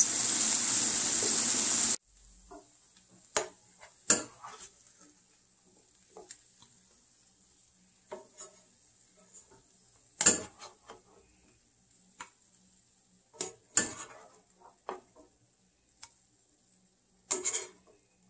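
Brussels sprouts sizzling in a nonstick frying pan, a steady hiss that cuts off abruptly about two seconds in. Then scattered scrapes and clicks of a plastic slotted spoon against the pan and bowl as the sprouts are scooped out, the loudest about ten seconds in.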